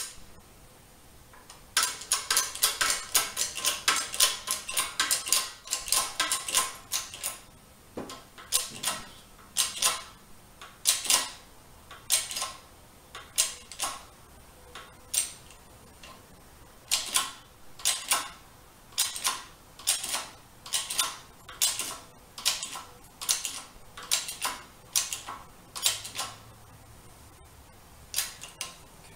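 A 20-ton hydraulic bottle jack on a shop press being pumped by its handle, each stroke giving a cluster of sharp metallic clicks, about one stroke a second, as a new front wheel bearing is pressed into a Honda Forza wheel. The pumping begins about two seconds in and goes on with a few short pauses.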